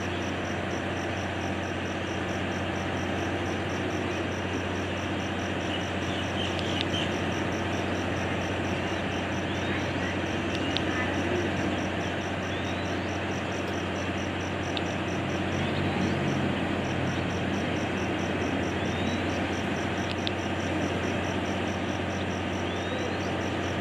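Steady low engine hum, with a high, rapid pulsing trill and a few short rising chirps over it.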